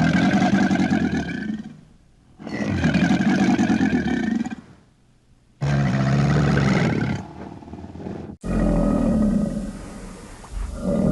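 Alligator sound effect: four long growling roars, each about two seconds with a pitch that rises and falls, separated by short pauses, and a fifth starting near the end.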